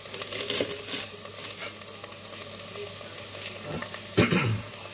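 Fajita meat sizzling steadily in a frying pan, with a kitchen knife chopping onion on a wooden chopping board in the first second or so. A brief louder clatter comes about four seconds in.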